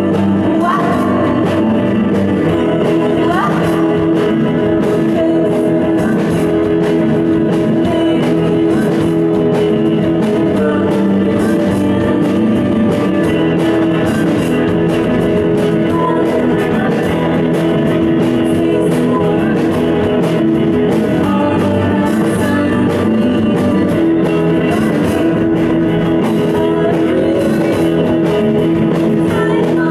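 Live surf-rock band playing at full volume: electric guitars, bass and keyboard, with a woman singing.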